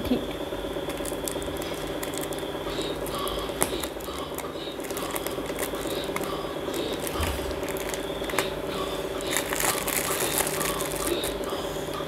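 A small plastic bag of coconut milk being handled and worked open by hand, giving scattered crinkles and small clicks, busiest about three-quarters of the way through, over a steady background hum.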